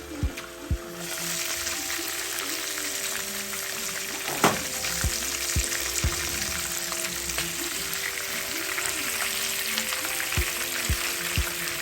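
Flour-coated chicken frying in hot oil in a pot: a steady sizzle that starts abruptly about a second in, with one sharp knock about four and a half seconds in.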